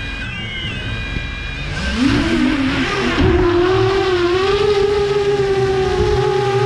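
FPV quadcopter's brushless motors whining: a steady tone at first, then spinning up about two seconds in and holding an even pitch.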